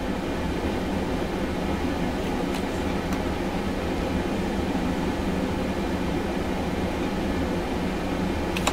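Steady low rumbling background noise, even throughout, with no distinct knocks or other events.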